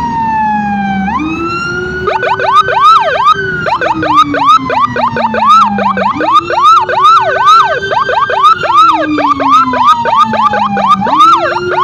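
Two emergency sirens sounding at once. One is a slow wail, rising and falling every few seconds. From about two seconds in, a fast yelp of rapid up-and-down sweeps joins it.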